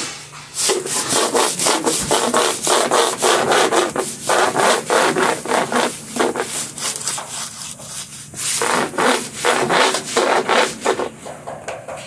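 Long-handled brush scrubbing back and forth over a diamond-plate metal floor in quick, rasping strokes, with a short pause around the middle.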